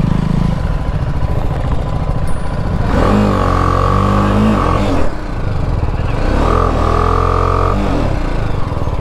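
Motorcycle engine revved twice, its pitch rising and falling, as the rear wheel spins and slides in soft beach sand.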